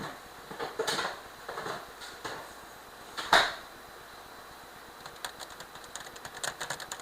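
Kitchen items being handled and put away: a few soft knocks and rustles, a sharp clunk about a third of the way in, then a quick run of light clicks near the end.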